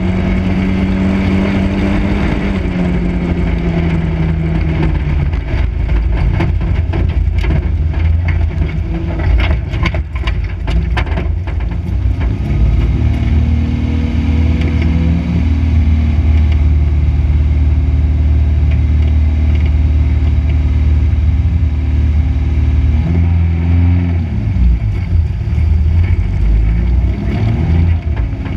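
Dirt-track race car's engine heard from inside the cockpit under racing throttle, its pitch dropping as the throttle is lifted and climbing again as it is reapplied. A run of sharp rattling knocks comes about a third of the way in.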